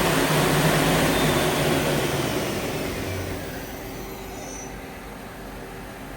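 The main spindle of a 2014 Doosan Puma 2600Y CNC lathe whirs loudly at 3000 RPM, then spins down. Over about two seconds its whine falls in pitch and the noise fades, leaving a steady, quieter machine hum.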